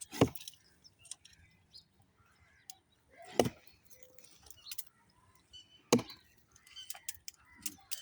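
Axe chopping into a tree's wood: three heavy strokes, each a sharp single blow, about two and a half to three seconds apart, with light clicks and ticks between them.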